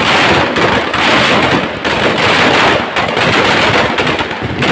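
Firecrackers packed inside a burning Dussehra effigy going off in a dense, continuous rapid crackle that swells in waves.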